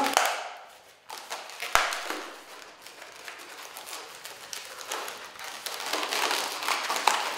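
A long latex modelling balloon being bent and shaped by hand, its rubber rubbing and crinkling against itself and the fingers, with one sharp tap a little under two seconds in.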